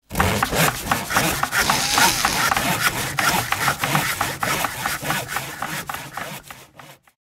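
A dense run of scraping, rubbing noise with many sharp clicks and knocks, fading away near the end.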